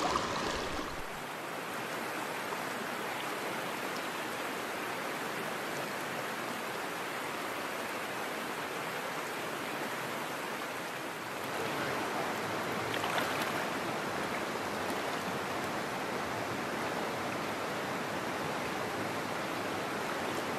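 Small rocky creek flowing: a steady rush of running water, a little louder from about halfway through.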